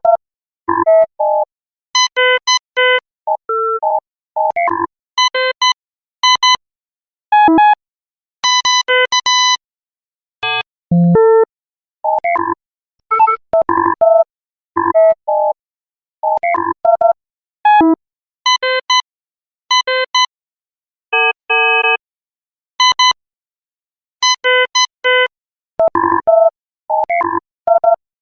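Electronic control-console beeping from a 1970s science-fiction series: short synthesized tones in quick clusters that jump in pitch, separated by brief pauses.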